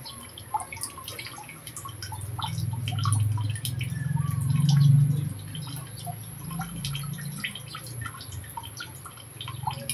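Metal ladle stirring and folding sticky glutinous rice through thick sugar syrup in an aluminium wok, giving a run of wet clicks, pops and scrapes. A low rumble swells to its loudest about five seconds in, then fades.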